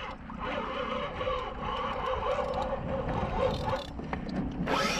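Suzuki 2.5 hp single-cylinder four-stroke outboard running steadily at trolling speed, a low rumble with a wavering hum. Near the end a louder rushing noise sets in.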